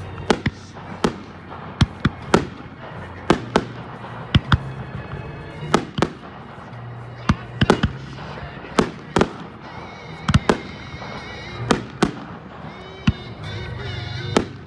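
Fireworks shells bursting in an irregular, rapid string of sharp bangs, often one or two a second and sometimes in quick pairs, over background music.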